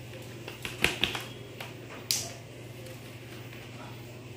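A few light clicks and taps, bunched about a second in, of small laptop parts and screws being handled on a work surface, then a short scrape about two seconds in, over a steady low hum.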